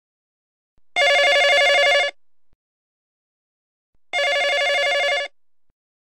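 Telephone ringing twice, each ring a rapid trilling bell lasting about a second, the two about three seconds apart.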